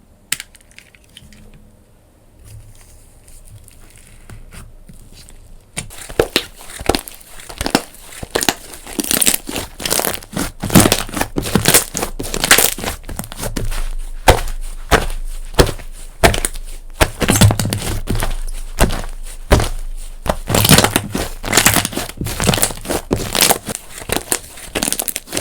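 Hands squeezing and crushing a campfire-styled slime: a dense, irregular run of crackling crunches. The crackling starts about six seconds in, after a quieter stretch of soft handling.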